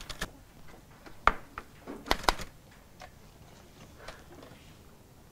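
Hushed study room with a few short, sharp clicks and taps, the loudest about a second in and a cluster around two seconds in, over a low background hiss.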